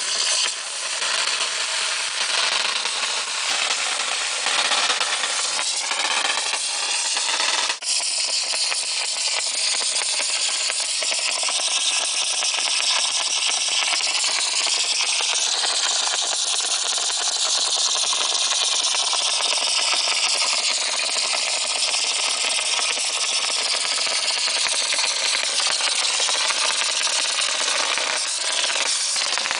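Kawa Machine small 100 V tube-type mortar pump running, a steady mechanical noise with a strong hiss and a brief break about eight seconds in.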